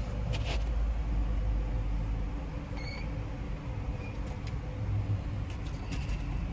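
Steady low rumble inside a minivan's cabin with the engine idling, broken by a few light clicks and some faint, short high chirps.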